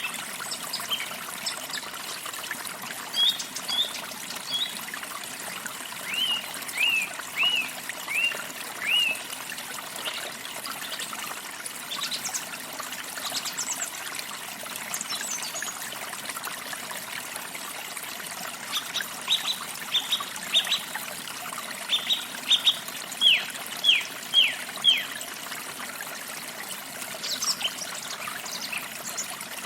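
Forest stream trickling steadily, with a songbird singing two runs of short, quick falling chirps over it, one about a quarter of the way in and a longer one past the middle.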